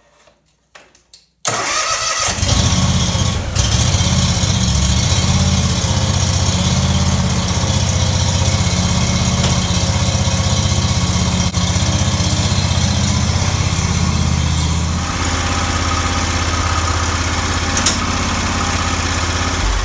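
John Deere X370 lawn tractor's Kawasaki V-twin engine starting about a second and a half in, catching almost at once, then running steadily to warm up for an oil change. Its sound shifts about fifteen seconds in.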